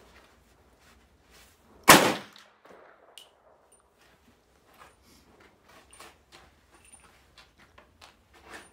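A single sharp shot from a 1943 M1 .30-caliber carbine about two seconds in, followed by a brief echo. Faint scattered clicks and taps follow.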